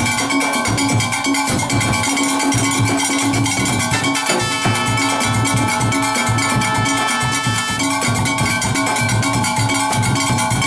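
Steelband engine room playing loud: several brake-drum irons struck with metal beaters clang out a steady, interlocking rhythm over a drum kit and cymbals.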